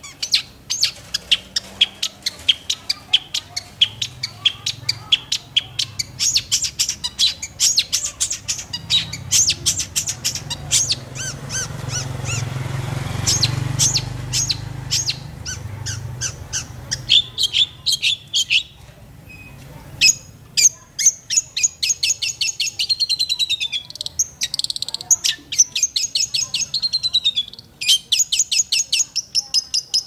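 Long-tailed shrike singing: rapid runs of short, sharp, high chirps, and in the last third quick trains of notes that fall in pitch. A low rumble sits under the calls about halfway through.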